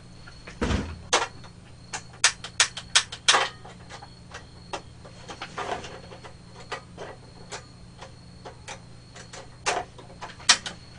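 Irregular clicks and knocks of objects being handled and moved about, with quick runs of clicks about two seconds in and again near the end, over a faint steady hum.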